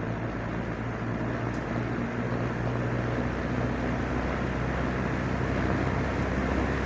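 Vintage 1970s Toastmaster 15-inch box fan running: a steady electric-motor hum under the rush of air from the blades, slowly growing louder, then cut off abruptly at the end.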